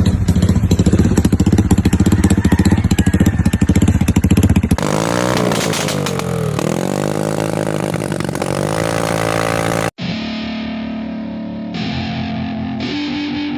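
Honda PCX 150 scooter's single-cylinder engine running through an aftermarket AUN exhaust pipe: fast, even pulsing at idle for a few seconds, then revved up and down several times. About ten seconds in the engine cuts off abruptly and music begins.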